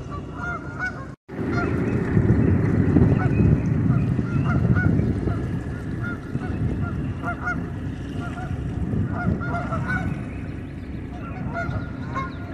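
A flock of geese honking, many short calls overlapping, over a steady low rumble. The sound drops out briefly about a second in.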